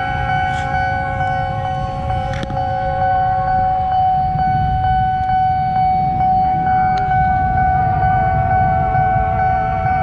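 Railway level-crossing warning alarm sounding one steady high tone, signalling that the barrier is down and a train is due. A constant low rumble runs underneath, with a few sharp clicks.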